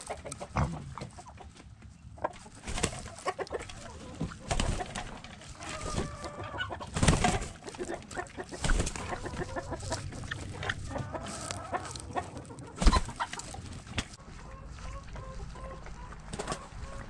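Hens clucking in short repeated calls, with sharp knocks and scuffs close to a GoPro strapped to a mini pig's back as she moves around.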